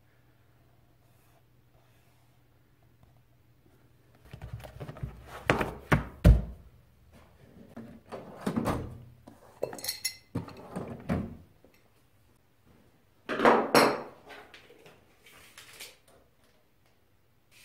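Metal tool-chest drawers being pulled open and pushed shut, with tools clattering inside, in several bursts of thumps and rattles starting about four seconds in. One metallic clink rings briefly about ten seconds in.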